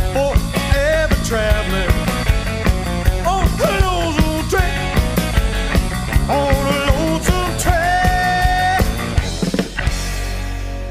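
Rock and roll band playing, with singing over a steady drum beat. Near the end the band stops on a final hit and a held chord that rings out and fades.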